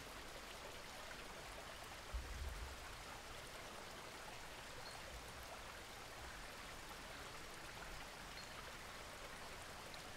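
Faint, steady rush of a small stream running over rocks, with a brief low rumble about two seconds in.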